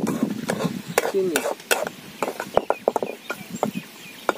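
A spatula scraping and tapping irregularly against a kadai as eggs are stirred while frying in oil.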